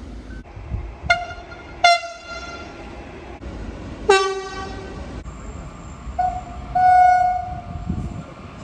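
Train horns sounding: two short blasts about one and two seconds in, the loudest blast about four seconds in, and a longer held horn tone from about six to eight seconds, over a low rumble.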